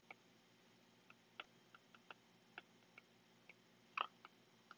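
Near silence with faint, irregular light clicks of a stylus tapping on a pen tablet during handwriting, a slightly louder click about four seconds in.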